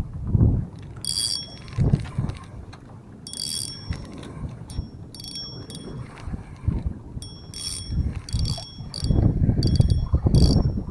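Wizard 4000 spinning reel's drag clicking out line in about ten short, ringing bursts as a hooked fish pulls on the bent rod. Wind rumbles on the microphone, heaviest near the end.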